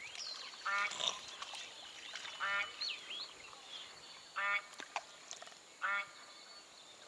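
Short animal calls, four in a row, one every one and a half to two seconds. Faint high chirps come in between near the start and about three seconds in.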